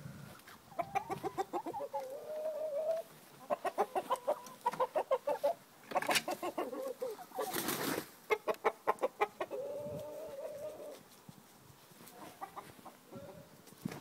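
Chickens clucking in quick runs of short notes, with a few longer drawn-out notes in between; the calls thin out near the end.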